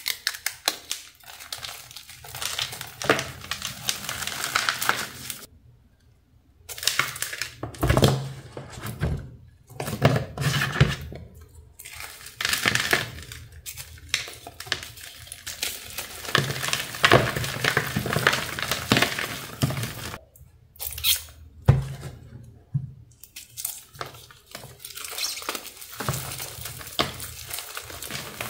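Hands crushing and crumbling a dyed gym-chalk reform block: irregular crunches and crackles with soft, powdery crumbling, broken by two short pauses.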